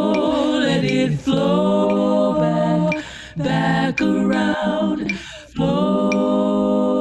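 A cappella singing: voices holding long, sustained notes that glide between pitches, with short breaks about three and five seconds in.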